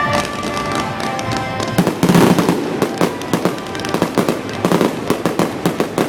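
Fireworks going off in rapid, irregular bangs and crackles, with a heavier cluster of blasts about two seconds in.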